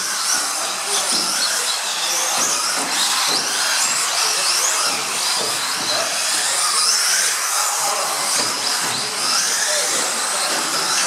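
Several small electric radio-controlled off-road model cars racing, their motors giving overlapping high-pitched whines that rise and fall as they speed up and slow down.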